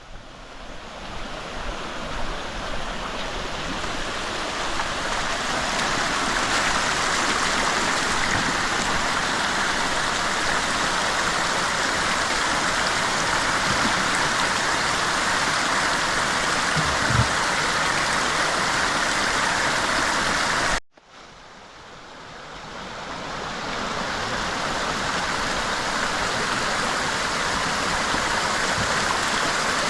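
Steady rush of water, as from a stream or heavy rain, fading in, cutting out abruptly about two-thirds of the way through, then fading back in.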